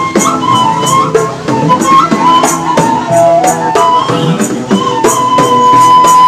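Street band playing: a bamboo suling flute carries a wavering, held melody over acoustic guitar chords, with a tambourine struck on the beat about twice a second.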